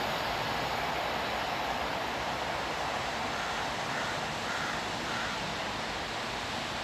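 Steady rushing noise of a diesel-hauled passenger train pulling away into the distance, fading slowly.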